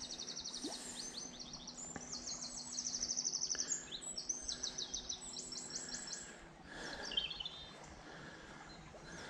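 Songbirds singing: a run of high, fast trills of quickly repeated notes, one phrase after another, over a faint steady low hum.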